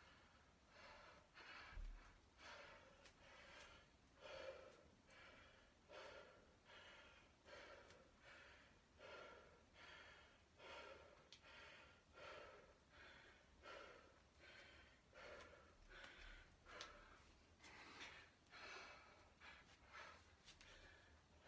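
Faint, hard, rhythmic breathing, about three breaths every two seconds: a man winded from heavy kettlebell swings.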